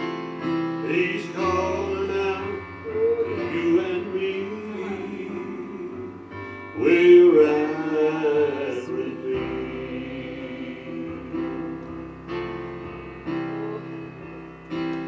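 Live gospel worship music in an instrumental break between verses: keyboard chords with a voice holding and bending wordless notes over them, swelling about seven seconds in.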